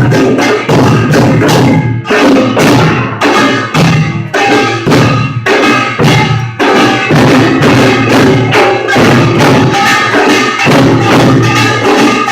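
Korean pungmul percussion troupe playing a fast, dense rhythm of struck gongs and drums with continuous rapid strikes. It is a loud, poor-quality phone recording.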